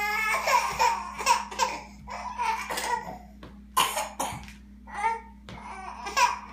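A baby babbling and squealing, broken by a few short, sharp vocal bursts, the strongest about four seconds in and near the end.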